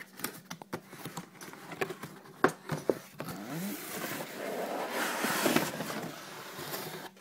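Cardboard packaging of a liquid-cooler kit being handled and opened: a run of sharp clicks and taps, then a few seconds of rustling and scraping about halfway through.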